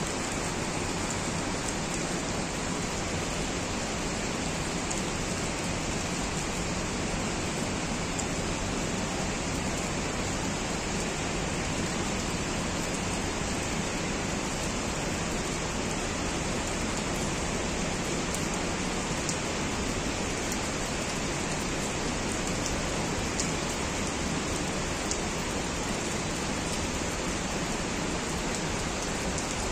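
Steady hiss of heavy rain falling, with a few faint drop ticks now and then.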